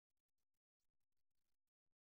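Near silence: only a very faint, broken hiss of background noise.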